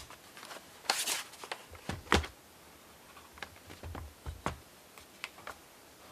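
Handling noise from an Acer Aspire 5552G laptop's plastic case: a string of sharp clicks and knocks with a short sliding rustle about a second in, as the laptop is turned over on a table and its lid is opened.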